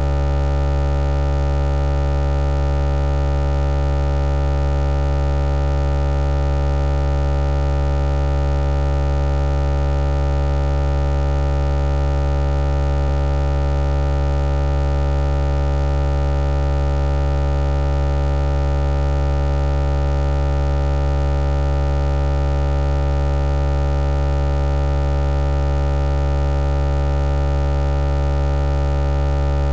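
A loud, unchanging electronic hum of several held low tones, like a sustained synthesizer drone.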